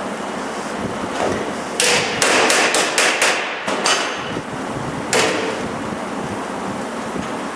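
A hammer striking sheet metal: a quick run of about seven sharp blows about two seconds in, then three more spaced-out blows, some with a brief metallic ring. A steady rushing noise runs underneath.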